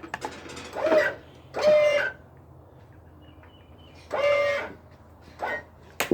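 Chickens calling, about five short pitched calls of half a second or so each, over a faint steady low hum.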